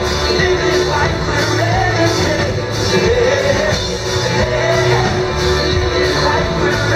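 Live rock band playing: a male lead singer over drums and guitar, at full loudness throughout.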